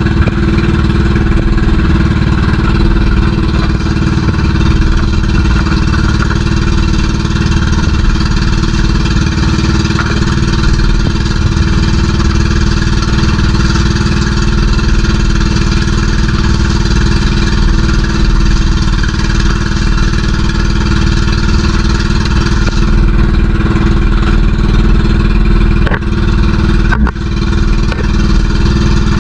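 Engine of a motorized outrigger fishing boat (bangka) running steadily under way, loud and close, with a short dip a little before the end.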